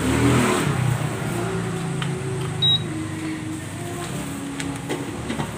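Electric cooktop giving a single short high beep about two and a half seconds in as it is plugged in and powers on, over outdoor background noise.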